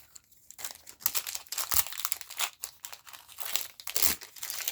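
Foil booster pack wrapper being crinkled and torn open by hand: a rapid, irregular crackle.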